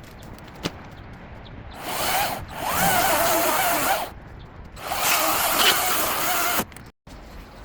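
Ego battery-powered electric chainsaw running in two bursts of about two seconds each, its motor whine wavering in pitch as the chain cuts through branches.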